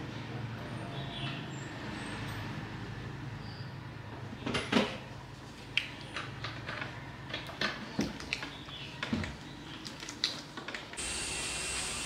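About a dozen irregular sharp knocks and clicks over a steady low hum. Near the end there is an abrupt change to a steady high hiss.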